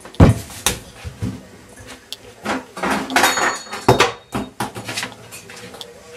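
Irregular knocks and bumps, such as cupboard doors, furniture or things set down, with a stretch of rustling and clatter about halfway through.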